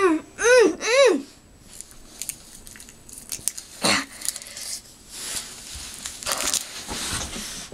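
Three short rising-and-falling vocal cries from a person, about half a second apart, followed by rustling and handling noise close to the microphone, with one sharp knock about four seconds in.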